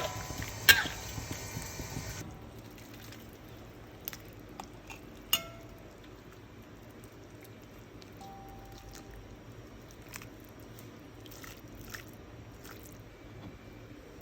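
Sharp clinks of kitchen utensils against cookware: two loud ones at the start, and one about five seconds in that rings briefly. They sit over a cooking hiss that cuts off about two seconds in, followed by a few softer knocks.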